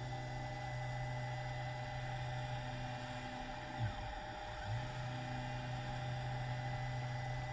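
A steady low electrical hum with a faint high tone above it, the low hum breaking off for just under a second about four seconds in.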